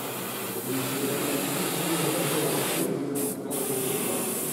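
Airbrush spraying paint, a steady hiss of air that stops briefly twice about three seconds in as the trigger is released.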